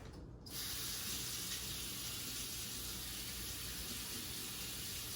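Kitchen tap turned on about half a second in and running steadily into the sink.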